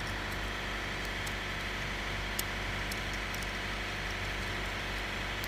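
Steady low machine drone with a few faint, scattered clicks of metal on metal as pliers work at a screw lodged in a tire.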